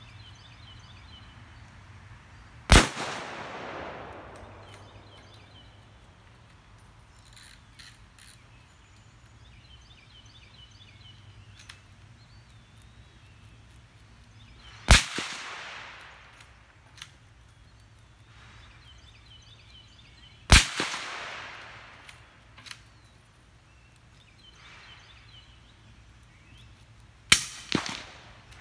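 Four rifle shots from a .308 Winchester Remington 700, heard from about 30 yards, each a sharp crack with a trailing echo. The first, about three seconds in, is unsuppressed with supersonic ammunition. The next two, about 15 and 21 seconds in, are supersonic rounds through an AAC 762-SDN-6 suppressor, and a last suppressed shot near the end is followed closely by a second crack.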